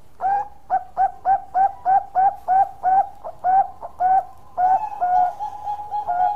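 Bangkok-type zebra dove (perkutut) singing its long song: a quick run of short coo notes, about three to four a second, that turns into longer, joined coos near the end.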